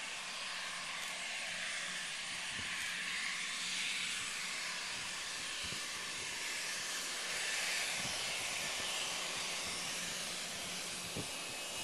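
Embraer ERJ-145 regional jet's twin Rolls-Royce AE 3007 turbofans running at low thrust as it turns to line up on the runway: a steady jet hiss.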